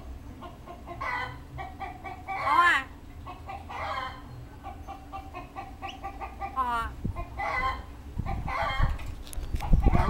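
Caged hill myna calling: a series of separate whistled and warbling notes, the loudest about two and a half seconds in, a quick rising run of notes near seven seconds, and short repeated notes between them.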